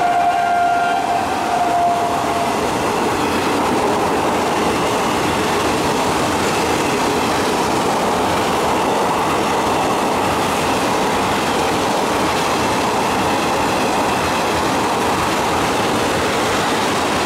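Electric-hauled passenger train running through the station at speed: a loud, steady rolling noise of coaches' wheels on the rails. The locomotive's horn trails off in the first couple of seconds.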